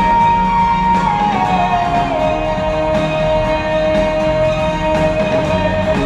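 Ice show soundtrack music played over the theater's sound system. One long held lead note slides down in pitch between one and two seconds in, then holds over steady accompaniment.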